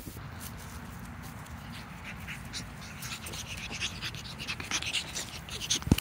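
Pug puppy panting and snuffling close by, with short crackles growing from about two seconds in. One sharp knock comes just before the end.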